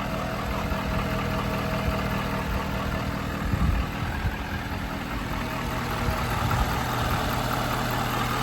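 Ford 6.7 Power Stroke V8 turbodiesel idling steadily.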